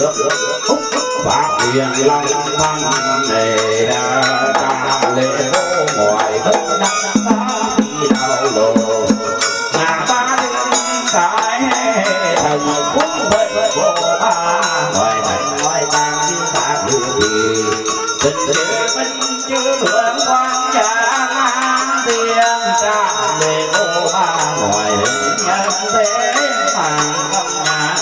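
Traditional ceremonial music: melodic instruments playing a winding line over a continuous rattling percussion.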